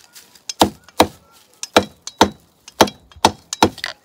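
A machete chopping through the bristle ends of a dry babool-grass broom into a wooden log, trimming the broom to length: about eight sharp chops, roughly two a second and unevenly spaced.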